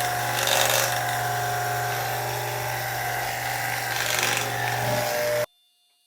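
Electric hair clippers running and cutting hair, a steady buzz with a hiss over it, stopping abruptly about five and a half seconds in.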